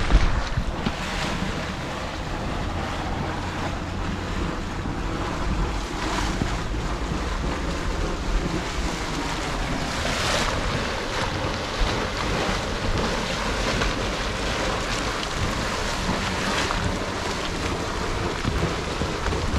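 Steady rushing hiss of steam and boiling water from a volcanic hot-spring pool, mixed with wind buffeting the microphone.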